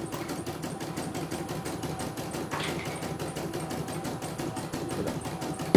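CNY E900 computerised embroidery machine stitching a design, its needle running in a rapid, even rhythm of clicks: running smoothly on a test run after repair. A single sharp knock right at the end.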